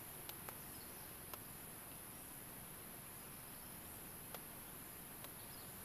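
Faint, steady, high-pitched chorus of insects over the even hiss of a fast-flowing, flood-swollen river, with a few brief sharp clicks.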